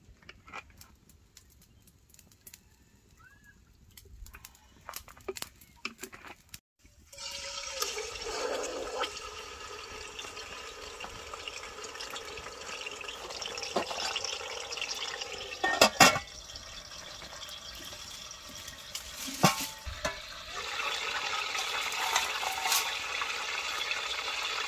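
Whole chicken frying in a pot of hot cooking oil over a wood fire: a few light clicks at first, then a steady sizzle that starts suddenly about seven seconds in and grows stronger near the end. Two sharp knocks stand out in the second half.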